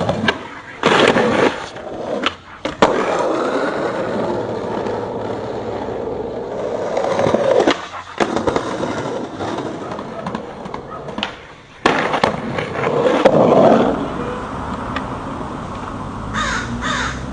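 Skateboard wheels rolling steadily, broken by sharp clacks of the board popping and landing: a cluster about a second in, another near the middle, and more about twelve seconds in. Crows cawing near the end.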